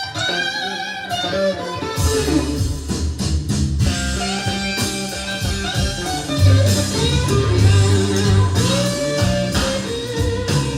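Blues music: an electric guitar line opens the song, and bass and drums come in about two seconds in.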